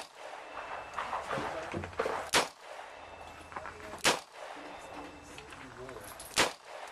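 Three gunshots, about two seconds apart, from handguns being fired on a shooting range.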